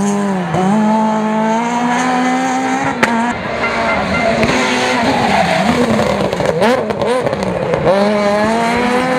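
Rally car engine revving hard, its pitch climbing through the gears and dropping sharply at each shift or throttle lift, with tyres squealing as the car slides through a corner.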